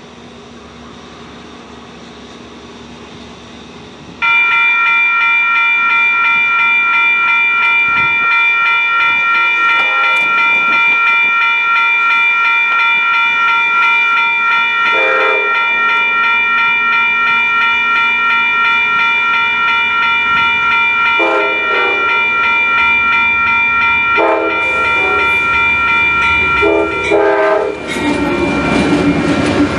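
Amtrak GE P42DC locomotive's air horn sounding a long, loud chord, starting suddenly about four seconds in and held for over twenty seconds as the train approaches. Near the end the horn stops and the locomotive and double-deck Superliner cars pass close by with a rumble of wheels on rail.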